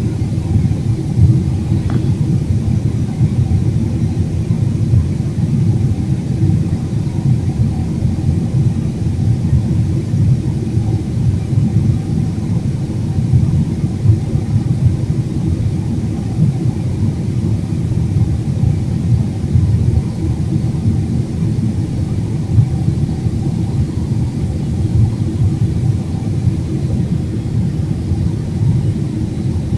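Steady low rumble of an airliner's jet engines and rushing air heard inside the passenger cabin while the plane climbs after take-off.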